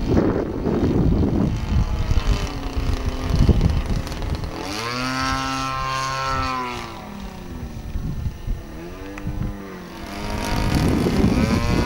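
Engine and propeller of a radio-controlled aerobatic model airplane flying overhead, its whine rising and falling in pitch twice as it manoeuvres past, with wind buffeting the microphone in the first few seconds and again near the end.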